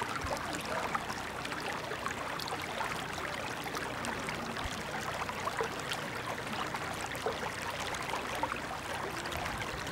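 Shallow creek running over stones: a steady babbling of water with many small splashes and gurgles.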